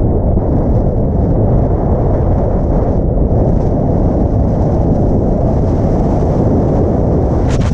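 Strong gale-force wind buffeting the microphone: a loud, steady low rumble, with a brief sharper gust just before the end.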